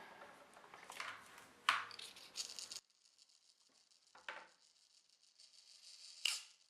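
Light clicks and clinks of small metal hard drive parts being handled: the spacer ring and a platter being fitted onto the spindle of an opened laptop hard drive. There are several sharp clicks in the first few seconds, then it goes quieter, with a faint knock and one last sharp click near the end.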